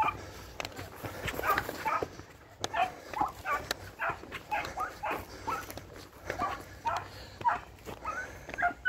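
Basset Fauve de Bretagne hound giving tongue while hunting through brambles: short, yelping bays about two a second, without a break.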